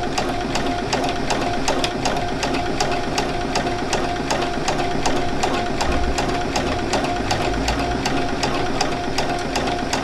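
Domestic sewing machine running at a steady speed for free-motion stitching, its needle ticking rapidly and evenly over a steady motor whine. It is sewing cable stitch, with thick thread wound in the bobbin.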